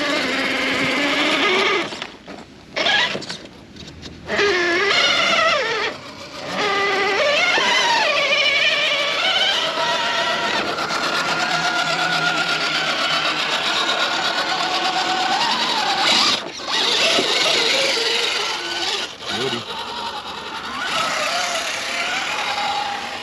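Radio-controlled scale crawler's electric motor and gearbox whining as it drives. The pitch rises and falls with the throttle, and it cuts out briefly several times, around two, four, six, sixteen and nineteen seconds in.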